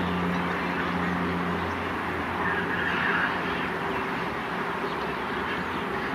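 Distant EMD WDP 4B diesel locomotive approaching at full notch: a steady low engine drone that fades out a little under two seconds in, over a wide rushing noise. A short higher-pitched sound stands out about two and a half seconds in.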